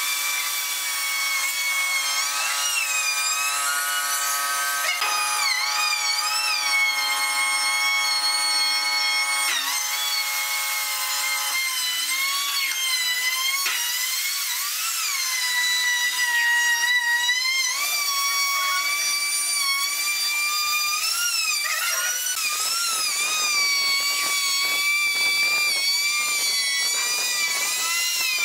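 Maktec trim router running at high speed as it cuts into a wooden door frame, its high whine dipping and recovering as the bit takes load. About three-quarters of the way in, a rougher cutting noise joins the whine.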